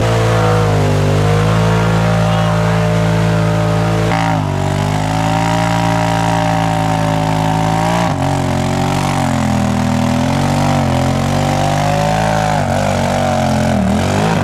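Side-by-side UTV engines revving hard as the machines churn through a deep mud hole, the pitch rising and falling with the throttle. The sound changes abruptly about four and eight seconds in.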